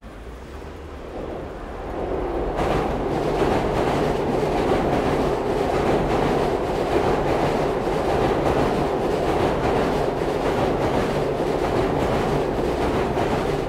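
Commuter train passing over an elevated railway bridge, a steady rumble with repeated wheel clatter that builds over the first two seconds and then holds. Heard as three microphone setups summed together untouched, so phase cancellation between them thins out the mid and low frequencies.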